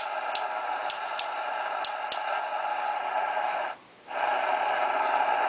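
Cobra 200GTL-DX CB radio receiving an empty band: steady static hiss from its speaker, with no stations on it. A few sharp clicks come in the first two seconds, and the noise cuts out briefly a little before four seconds in.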